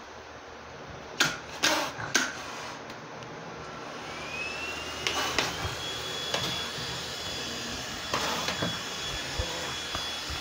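Vacuum cleaner running with a steady rushing noise and three sharp knocks a second or two in; about four seconds in, a whine rises in pitch and then holds a steady high tone.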